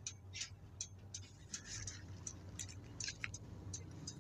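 Inside a Nissan Diesel city bus, a regular ticking, about three ticks a second, runs over the steady low hum of the diesel engine. A brief hiss comes about a second and a half in.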